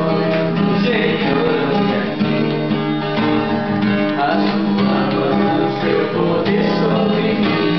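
Background music: acoustic guitar song with held chords.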